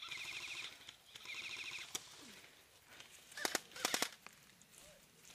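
Two short bursts of automatic airsoft gun fire, each a rapid rattle under a second long, followed about three and a half seconds in by a quick cluster of sharp snaps.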